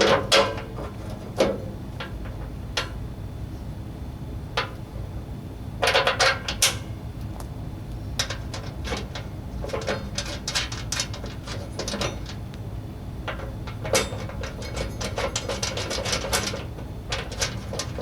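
Small metal clicks and clinks as a snow blower's skid shoe and its bolts are handled and fitted to the steel auger housing, with a quick run of rapid clicking toward the end, over a steady low hum.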